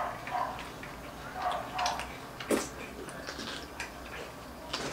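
People chewing soft tortilla wraps at a table: quiet, scattered mouth clicks and small ticks, one sharper click about halfway through.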